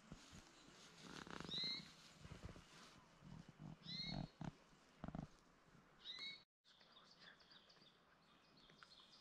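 Faint short high chirps from a small animal, four of them about two seconds apart, with soft rustling between them.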